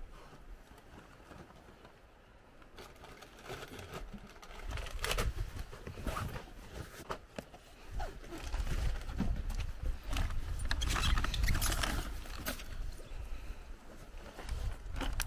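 Backpacks and gear being handled and packed: scattered knocks, clunks and rustles of fabric and plastic, over a low rumble that is strongest in the second half.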